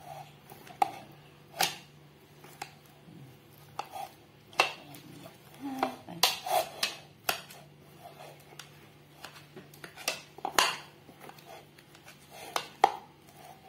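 Stainless steel wire potato masher mashing boiled cassava in a bowl: irregular clacks and knocks as the metal masher strikes the bowl, some louder than others.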